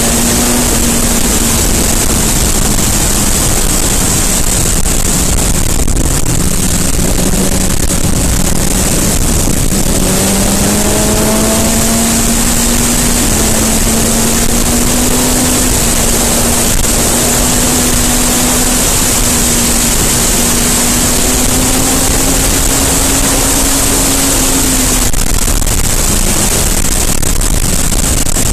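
BMW S 1000 RR's inline-four engine running at road speed under a loud, steady rush of wind on the action camera's microphone. The engine note sags a few seconds in, rises again about ten seconds in, holds, and falls back near the end.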